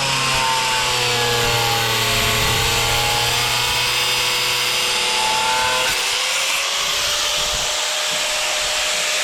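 Angle grinder with a diamond blade cutting through a large porcelain tile kept wet with water, the motor whine sagging slightly in pitch under load. About six seconds in the cutting noise drops away as the blade comes free and the grinder keeps running.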